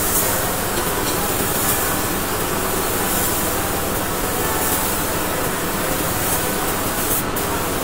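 Steady hiss of compressed air from a paint spray gun, running without a break.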